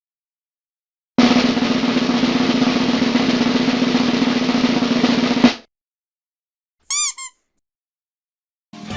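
Snare drum roll sound effect, a steady rattle about four seconds long that ends on a final hit. After a pause comes a short high tone in two quick parts.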